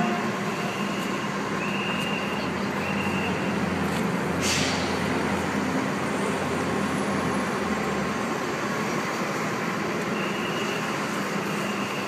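Parked fire trucks idling amid steady city street noise, with a low rumble and hum. A short hiss of air comes about four and a half seconds in, and a repeating high beep sounds early on and again near the end.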